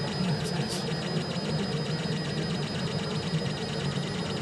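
botObjects ProDesk3D FFF 3D printer running mid-print: a steady low hum with faint high-pitched tones above it.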